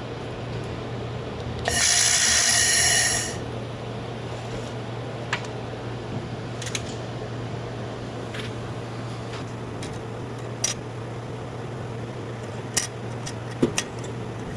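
Handheld fiber laser welding machine running with a steady low hum. About two seconds in there is a loud hiss lasting about a second and a half, followed by scattered sharp clicks.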